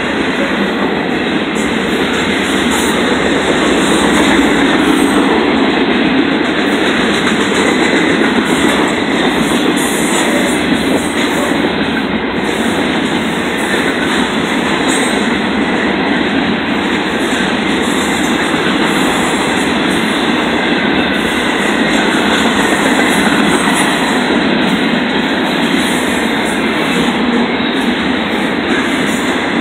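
Cars of a double-stack intermodal freight train rolling past, their steel wheels running on the rails in a loud, steady noise.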